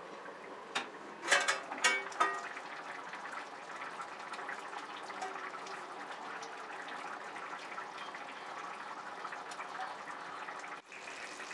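A steel plate used as a lid clanks and rings a few times as it is lifted off an iron kadai, about one to two seconds in. After that a thick chicken curry simmers, bubbling steadily.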